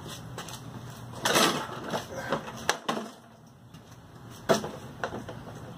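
Knocks, clicks and a short scrape as the plastic drive-belt cover and deck of a self-propelled lawn mower are handled and tugged at to free the cover. The loudest sound is a brief scrape about a second in, and a sharp knock follows later.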